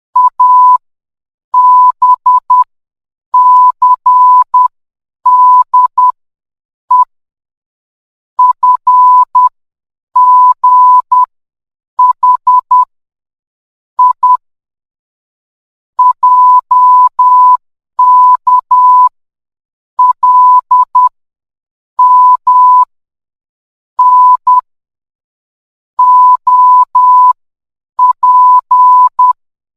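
Morse code sent as a single steady beep keyed on and off in short dots and longer dashes. The pulses come in clusters with short silent gaps between letters and longer ones between words.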